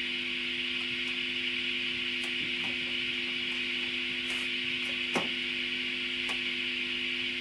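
Steady hiss with a low electrical hum, broken by a few faint clicks or taps, one slightly louder about five seconds in.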